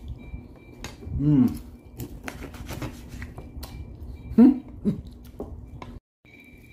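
A man chewing steak with his mouth full, giving short pleased 'mmm' hums about a second in and twice more around four and a half seconds in, among light clicks of a fork and mouth noises. The sound drops out briefly near the end.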